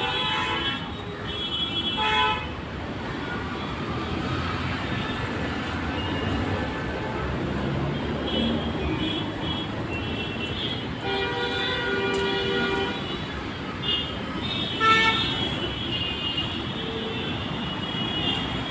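Busy road traffic: a steady rumble of engines and tyres with car horns honking again and again, including a long horn blast about eleven seconds in.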